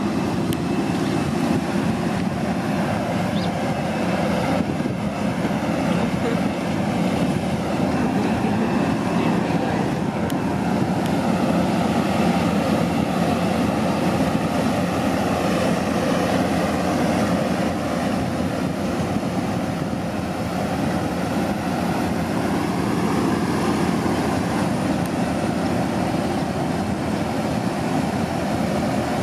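Steady aircraft engine noise on an airport apron, an even drone without any sharp events.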